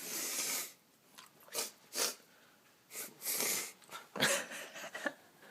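A boy sneezing and snorting repeatedly: a run of about five sharp, hissy bursts of breath, the loudest about four seconds in.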